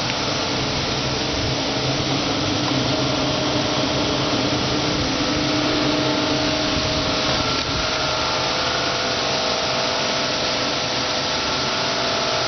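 High-pressure cleaner running steadily: a motor-and-pump drone with a hiss over it, its tone shifting slightly about two-thirds of the way through.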